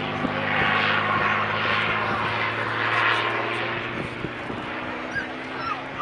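V-12 piston engine of a WWII fighter flying overhead: a steady low drone with a rushing sound that swells and fades about once a second, a little fainter in the second half.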